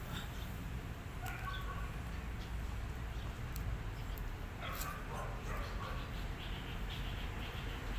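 Young puppies giving a few short, high whimpers and squeaks, over a steady low background hum.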